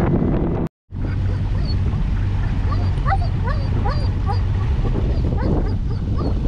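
A dog whining and whimpering in short, rising squeaks, several a second, over a steady low hum. The sound drops out briefly about a second in.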